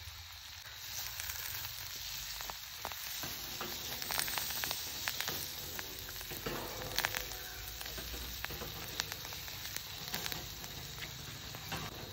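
Vegetables, spices and egg frying in hot oil in a pan, sizzling steadily, louder from about a second in, with scattered sharp clicks.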